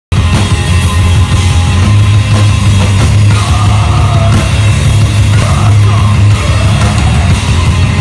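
Live rock band playing loud, with distorted electric guitars and drums, the sound dominated by a heavy low end. A wavering guitar line rises above the wall of sound in the middle.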